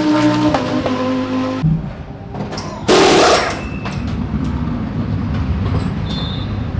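Race cars passing on the circuit. A car's engine note holds, then drops in pitch. After an abrupt change, a loud short rush of a car going by comes about three seconds in, followed by a steady low engine rumble.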